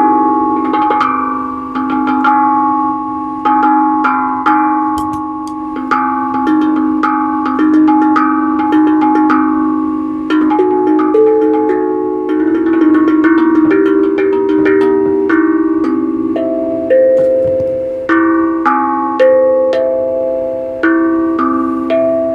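A pitched percussion instrument struck in a flowing melody, about two notes a second, each note ringing on and overlapping the next.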